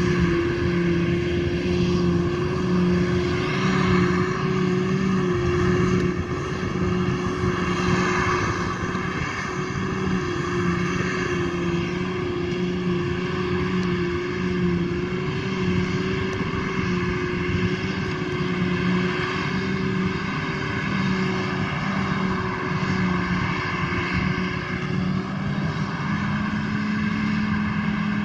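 Claas Jaguar 880 self-propelled forage harvester running under load while chopping grass silage and blowing it into a trailer alongside. It makes a continuous heavy drone with a steady hum, whose pitch shifts slightly near the end.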